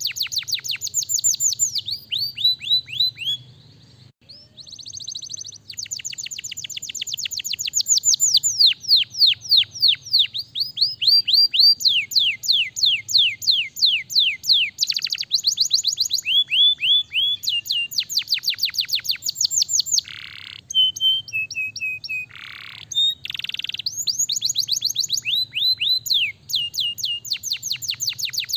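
Domestic canary singing: long rolling trills of rapid, high down-sweeping notes in changing phrases, with a short break about four seconds in and a few harsh buzzy notes about two-thirds of the way through.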